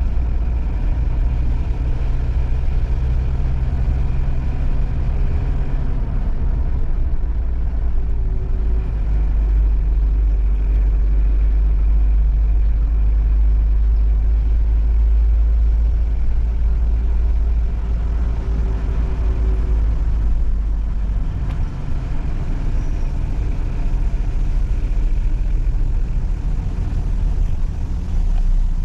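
Chevrolet Tavera on the move, heard from inside the cabin: a steady, heavy low rumble of engine and road noise.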